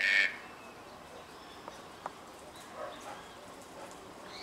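Red-breasted toucan giving a short, harsh call once at the start and again near the end.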